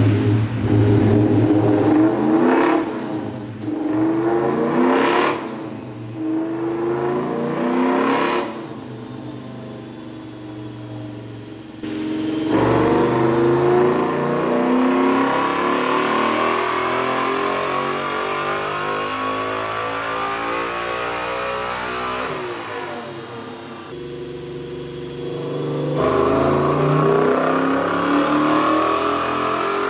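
Coyote 5.0 V8, a Gen 1 F-150 truck engine with truck cams, running on a chassis dyno and driving the rollers through the rear wheels. It starts with several short bursts of revving, eases off, then makes a long full-throttle pull with steadily rising pitch. It lets off and winds down about three-quarters of the way through, then pulls up again near the end.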